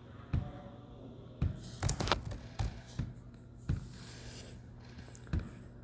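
Scattered clicks and taps from a computer keyboard and mouse, about seven spread irregularly, over a steady low hum.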